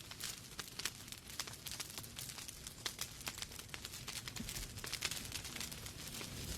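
Fire crackling in a fireplace: many small, irregular pops and snaps over a soft steady hiss.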